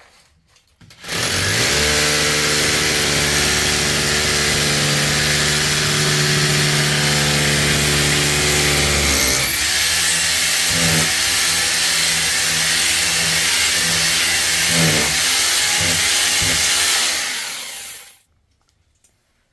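Electric power tool running hard for about seventeen seconds. Its motor holds a steady pitch, then drops and wavers about halfway through as it takes load, and it stops near the end.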